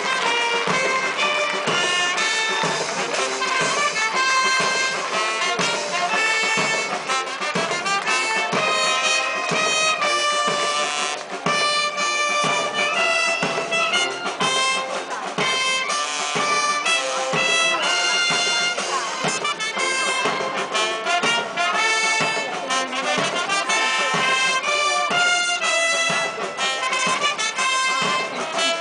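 Brass band playing music, a steady run of held brass notes with the tune moving throughout.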